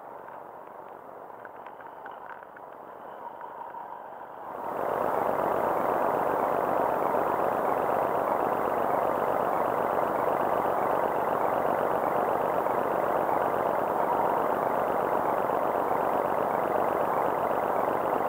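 Background music that gets much louder about four and a half seconds in and then holds steady.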